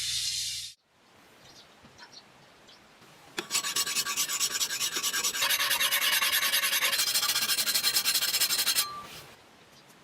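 Tool rasping against sword steel in rapid, even strokes, starting about three and a half seconds in and stopping after about five seconds. Under a second in, a louder hissing noise cuts off suddenly.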